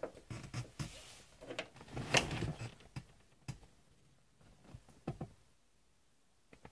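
Irregular short rasps, creaks and clicks of braided fishing line being pulled through the urethane bead of a car windshield, the loudest about two seconds in, thinning out to faint room tone after about five seconds.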